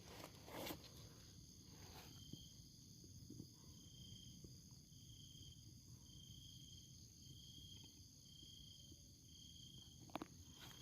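Faint chorus of insects such as crickets: several steady high-pitched trills, with one chirping call repeating about once a second. A few brief scraping clicks sound near the start and again near the end.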